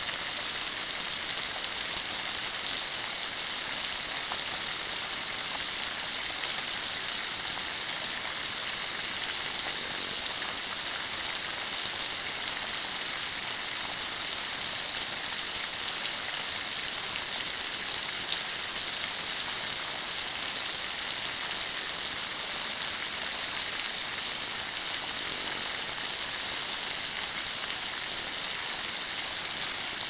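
Steady, even hiss of a rain shower, water falling as drops from a garden art installation.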